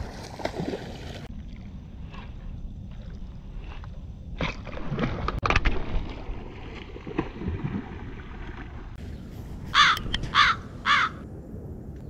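A hooked snakehead splashing and thrashing at the water's surface several times in the first eight seconds. About ten seconds in come three loud crow caws in quick succession, a sound effect marking that the fish has broken off with the lure.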